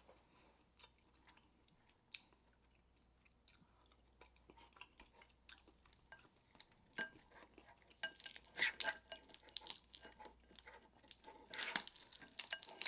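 Close-up mouth sounds of chewing snow crab meat, then faint cracking and snapping of snow crab shell as the legs are broken apart by hand, with dense clicking from a little past the middle.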